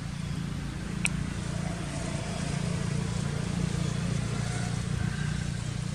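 A steady low engine rumble, with a single short sharp click about a second in.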